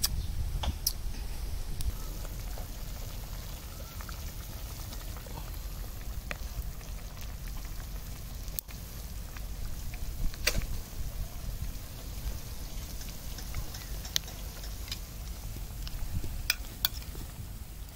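Scattered clinks of a metal ladle and spoon against a steel pot and a plate as soup is ladled and poured over rice, with the pot of soup simmering over charcoal and a steady low rumble underneath.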